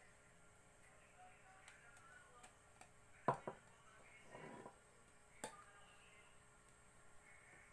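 Near silence in a small room, broken by a few sharp clicks about three seconds and five and a half seconds in and a short rustle between them.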